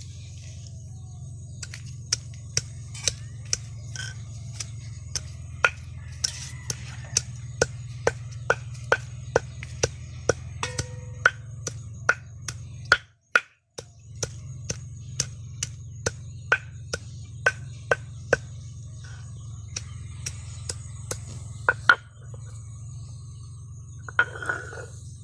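Steady chopping on a board: sharp knocks about twice a second, with a brief break midway.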